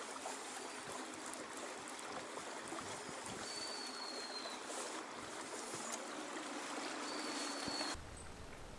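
Steady rushing and trickling of water along the hull of a small boat as it moves over calm water, with a thin high whistle twice. The water sound cuts off suddenly about eight seconds in.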